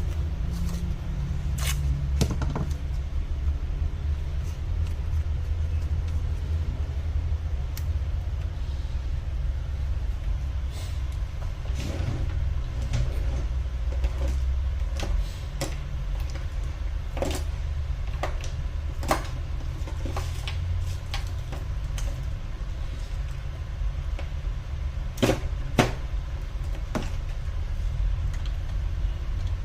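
Scattered light clicks and taps of small tools and parts being handled during a laptop repair, over a steady low hum.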